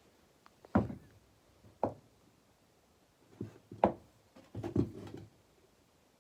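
A few separate knocks and clunks of hand tools being picked up and set down on a hard surface, the first the loudest.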